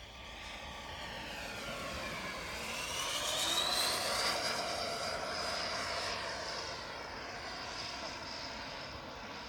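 Twin 110 mm Hacker Streamfan electric ducted fans with E50 motors on an RC model jet whining in a low pass: the whine climbs in pitch and loudness to its peak about four seconds in, then eases down and fades.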